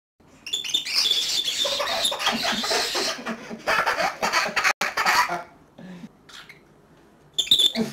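Pet cockatiel giving a run of loud, harsh screeching calls. The calls stop a little past the middle and come back in one short burst near the end.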